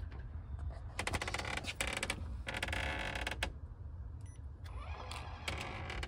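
Electric keypad deadbolt working its bolt: a run of rapid clicks, then a whirring motor lasting about a second, a short electronic beep, and more clicking near the end.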